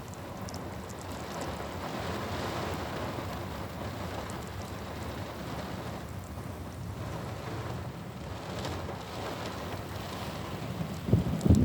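Heavy rain falling in a storm, a steady hiss that swells and eases. A few loud low thuds come near the end.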